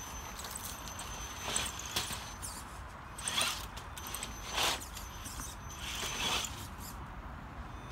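Traxxas TRX-4 RC crawler's electric motor and drivetrain whirring in about five short bursts as the throttle is blipped to climb stone steps.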